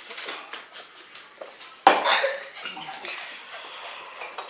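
A sharp clatter of hard objects about two seconds in, the loudest sound, with a short ringing tail, amid lighter clicks and knocks.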